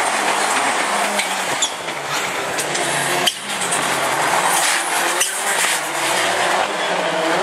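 Rallycross Supercar engine revving hard at racing speed, with two sharp breaks in the note about three and five seconds in where it shifts gear, then a falling note as the driver lifts off.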